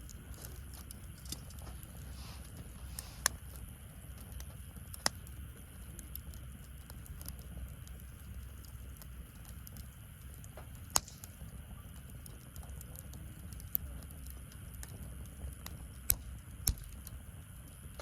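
Wood fire burning in a fire pit: a steady low rumble of flames with sharp crackling pops every few seconds, the loudest ones near the end.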